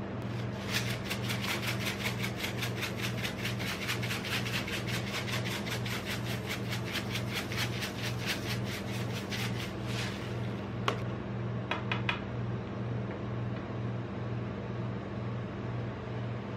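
Rainbow sprinkles shaken onto the ice cream sheet, a quick rhythmic rattle of about four or five shakes a second that stops about ten seconds in. A few light clicks follow. Under it all runs the steady low hum of the ice-roll cold plate's refrigeration unit.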